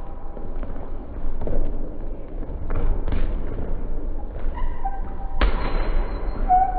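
Futsal ball being kicked and thudding on a wooden gym floor, with a hard, loud kick or ball strike about five and a half seconds in that rings on in the hall. Sneakers squeak on the floor in between.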